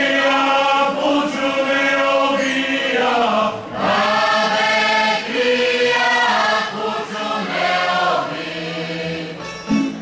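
Men and women of a folk ensemble singing a Slavonian folk song together, unaccompanied, in phrases with short breaths between them, while dancing a circle kolo. Right at the end a tamburica band starts to play.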